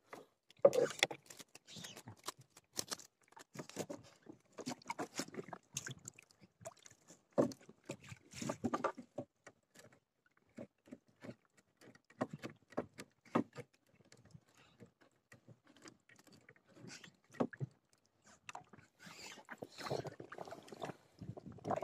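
Small waves slapping against the hull of an inflatable boat in irregular short splashes and taps.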